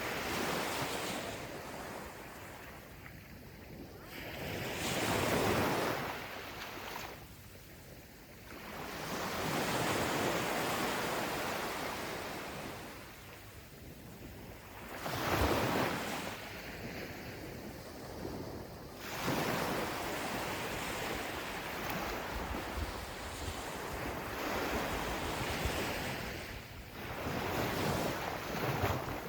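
Small ocean waves breaking and washing up onto a sandy shore, surging and fading every few seconds, with wind buffeting the microphone.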